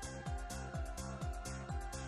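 Background music with a steady low beat, about four beats a second, under held notes.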